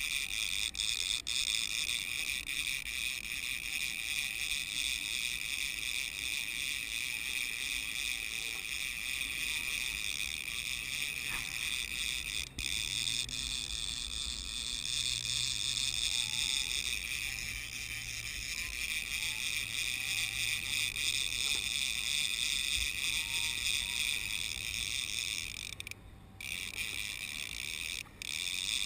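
Fishing reel drag buzzing steadily as a hooked wahoo runs and pulls line off, cutting out briefly twice near the end.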